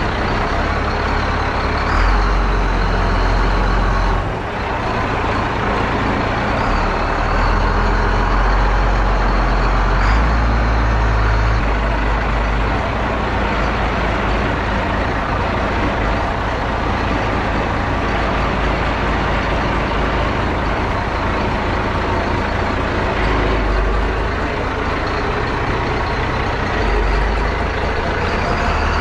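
Allis-Chalmers 7045 tractor's diesel engine running steadily close by as the tractor moves about, with a deep uneven rumble from wind on the microphone.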